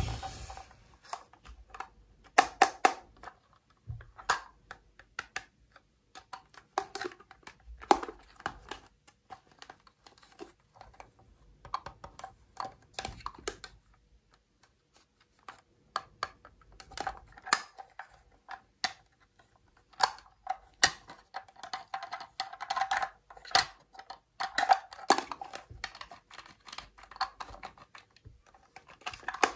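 Fingers handling a small hard-plastic toy toilet: irregular light clicks and taps of plastic as its lid and seat are lifted and the toy is turned over, with a few short pauses.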